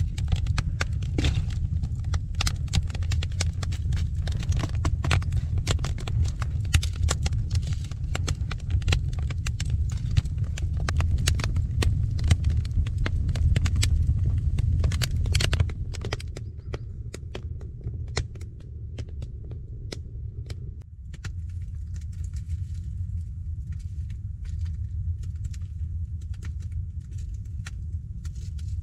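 Wood fire burning in a clay-and-stone fireplace, crackling with many sharp pops and snaps over a low steady rumble. About halfway through the crackling becomes fainter and sparser, leaving mostly the low rumble with occasional pops.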